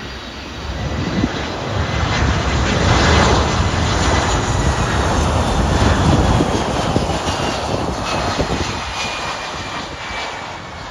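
Boeing 767 freighter's twin turbofan engines on landing approach, passing close by: a loud rush of jet noise that swells over the first few seconds and then eases off, with a high engine whine that slowly falls in pitch.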